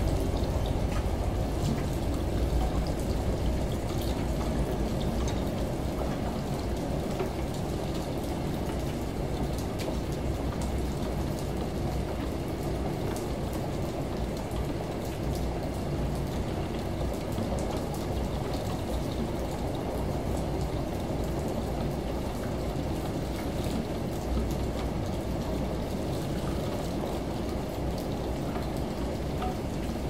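Layered mix of rain, a running shower and a washing machine's low drone, with steady water noise and the patter of drops. The low rumble is heavier in the first few seconds, eases off, and swells again about two-thirds of the way in.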